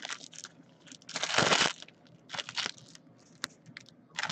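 Foil trading-card pack wrapper crinkling as it is torn open: one longer, louder crinkle about a second in, then a few shorter ones.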